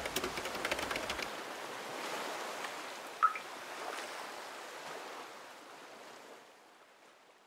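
Ocean surf washing, fading out slowly toward the end, with one brief high chirp about three seconds in.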